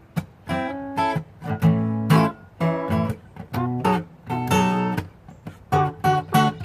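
Acoustic guitar strumming chords: sharp strokes, each left to ring briefly.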